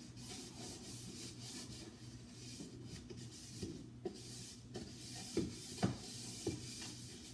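Scrubbing and wiping inside a fridge, a steady rough rubbing, with several short light knocks in the second half.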